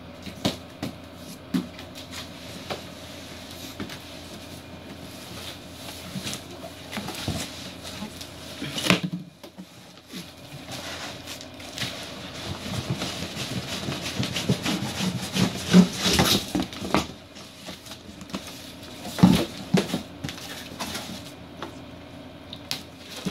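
Cardboard boxes scraping and rubbing as a boxed subwoofer is worked out of its outer shipping carton, with scattered small knocks and a few louder thumps.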